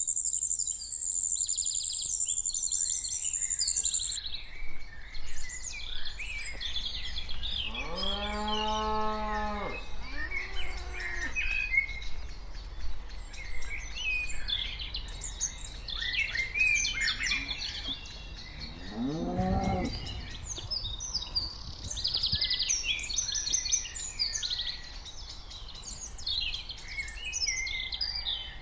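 Cows mooing: a long low moo about eight seconds in, a shorter one right after it, and a third moo that rises and falls near twenty seconds, with birds chirping throughout.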